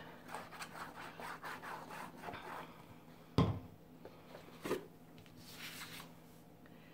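The tip of a liquid glue bottle rubbing and scraping over cardstock in quick strokes for about three seconds. It is followed by a thump, a lighter knock, and the rustle of a sheet of paper being picked up.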